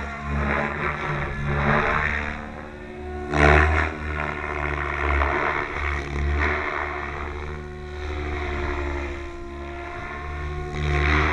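Goblin 700 RC helicopter in aerobatic flight: its rotor blades and drive whir and whoosh, the pitch rising and falling as it manoeuvres. The sound swells loudly about three and a half seconds in and again near the end.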